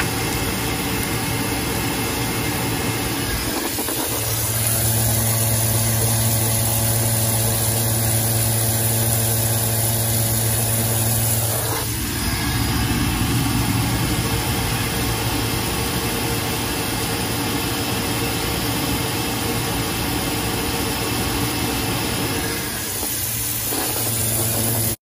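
Worcester Bosch gas combi boiler running with its case open, firing on hot-water demand: a steady rush of fan and burner noise. A low steady hum joins about four seconds in and cuts off suddenly about twelve seconds in.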